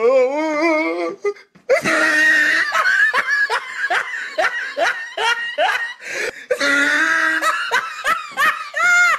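A woman laughing hard in quick repeated bursts, after a wavering drawn-out vocal sound at the start.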